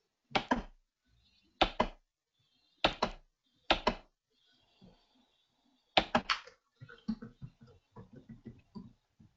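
Computer keyboard keystrokes picked up by the microphone: five sharp clusters of two or three clicks each. From about two-thirds of the way in, a run of fainter, quicker taps follows.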